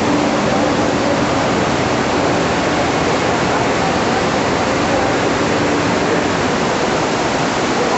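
Steady, loud rushing of flash-flood water. Faint voices sound under it.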